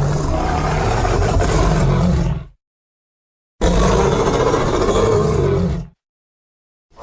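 Sound-designed Ankylosaurus creature roars, built partly from elephant sounds: two long, deep roars of about two and a half seconds each, a second of silence between them, and a third roar starting right at the end.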